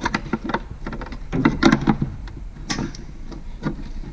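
Plastic clicks and knocks as the wiring harness bulb sockets are twisted out of a factory truck tail light housing: a string of short sharp clicks, with a denser clatter about a second and a half in, over a low steady hum.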